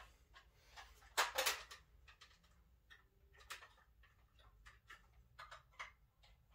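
Faint clicks, taps and rustling as a plastic toy X-Wing fighter is handled and set onto a high display shelf, with a louder rustle about a second in.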